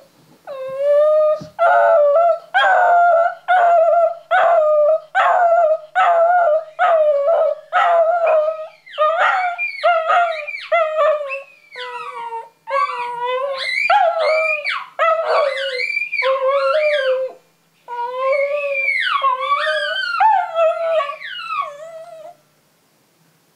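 West Highland White Terrier howling. It starts with a run of short, evenly spaced yelping howls, about one and a half a second, then moves to longer howls that rise and fall in pitch, and stops about a second before the end.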